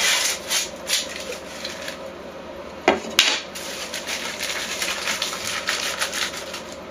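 Crackling, rustling handling noise as something is scrunched up between the hands, full of small irregular ticks, with two sharp knocks close together about three seconds in.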